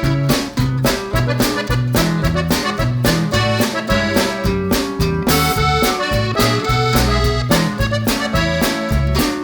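Background music with a steady beat, a stepping bass line and a held melody.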